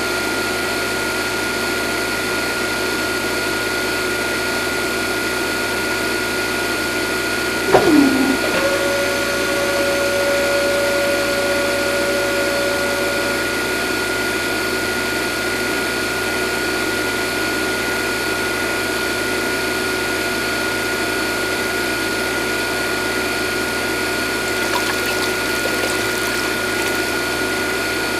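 Small electric motor running steadily with a thin, constant high whine. About 8 seconds in, a brief louder tone slides downward, then a second steady tone holds for about five seconds before stopping.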